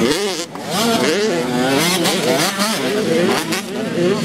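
85cc two-stroke motocross bikes racing, their engines revving hard and dropping off in quick waves as the throttle is worked, with more than one bike heard at once.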